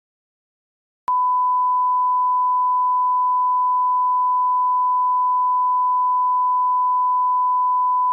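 A 1 kHz reference test tone of the kind that plays over colour bars: a pure, unchanging beep that starts abruptly about a second in and holds one steady pitch.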